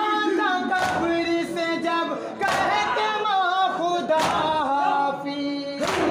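Male mourners chanting a noha together without instruments, with a sharp, unison hand-on-chest slap of matam about every second and a half, four times.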